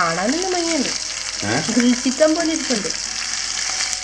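Chicken pieces shallow-frying over a low gas flame in a nonstick pan, with a steady sizzle and a wooden spatula stirring and turning them. A person's voice sounds twice over the sizzle, in the first second and again from about one and a half seconds in.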